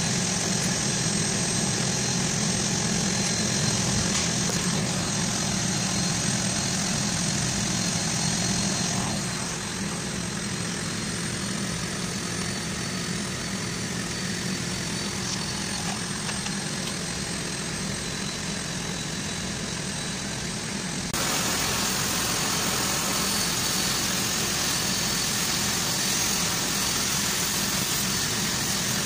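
Steady low drone of shop machinery, like an engine idling. About 21 seconds in, a louder, brighter hiss joins it as arc welding starts on a cast-iron worm gear actuator.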